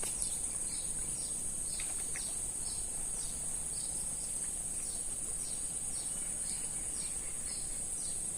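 Steady high-pitched insect drone, with a bird repeating short falling chirps about twice a second.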